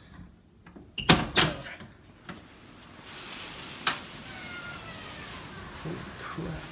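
A door opening, with two sharp clunks of its handle and latch about a second in. From about three seconds in, a steady rush of storm wind and rain comes through the open door.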